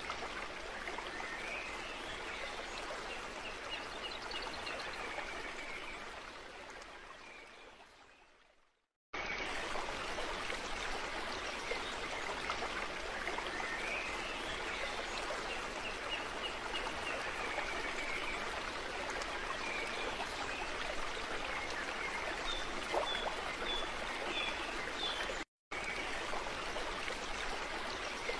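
Running water of a flowing stream with faint high chirps over it. It fades out about eight seconds in and, after a moment of silence, starts again abruptly, with another short cutout near the end.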